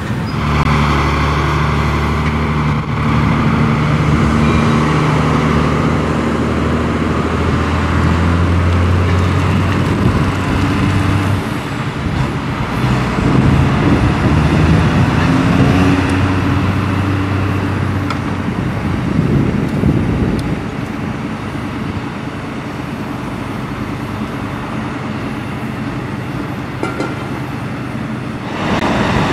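Heavy diesel truck engines running as the vehicles pull away at low speed, a deep steady note that shifts in pitch as they move off, then fades somewhat and rises again near the end.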